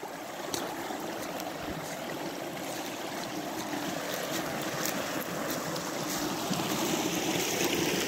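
Small, shallow forest stream running over stones: a steady rush of water that grows a little louder near the end, with a few faint footsteps on dry leaves.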